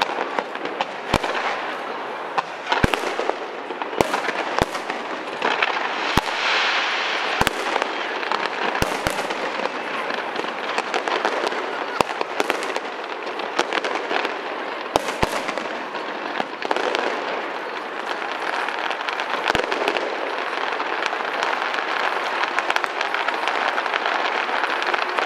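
Fireworks display: sharp bangs of bursting aerial shells over a steady, dense crackle of crackling stars. The bangs come often in the first part and thin out later, while the crackle runs on.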